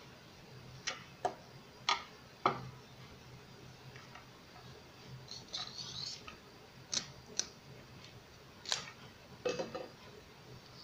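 Sharp clicks and knocks of plastic and metal parts as a mini hand air pump is handled and taken apart, with a brief scraping rustle about six seconds in.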